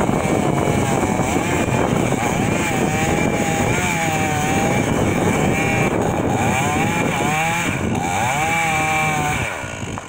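Two-stroke chainsaw running at high revs while cutting into a pine trunk, its pitch dipping and rising over and over as the chain loads up in the wood. It eases off near the end.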